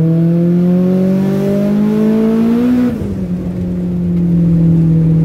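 Turbocharged Honda H22 four-cylinder engine of a Prelude, heard from inside the cabin, pulling with its pitch climbing steadily. About three seconds in the pitch falls away quickly and the loudness dips briefly. The engine then holds a steady note.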